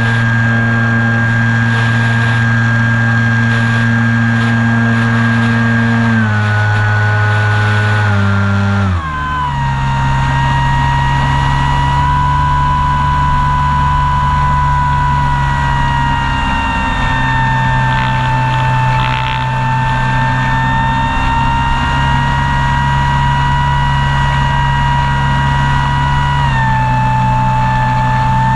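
Radio-controlled model airplane's motor and propeller running, heard from a camera on board. The pitch drops in two steps, about six and nine seconds in, as the throttle comes back, then holds steady at a lower pitch with a slight further drop near the end.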